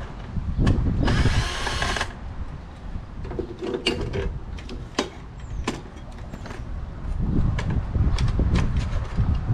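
Cordless drill running for about a second, driving in a screw, then scattered clicks and knocks of hardware and parts being handled.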